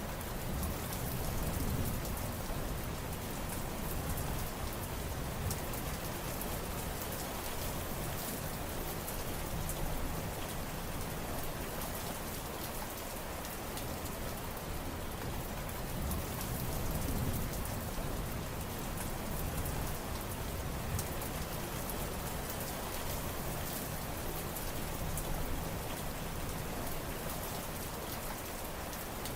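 Steady heavy rain falling, a dense even hiss with fine drop patter, swelling slightly in the low end now and then.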